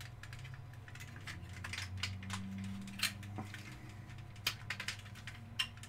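Scattered light clicks and taps of hard plastic model-train crane parts being handled and pressed together, over a steady low hum.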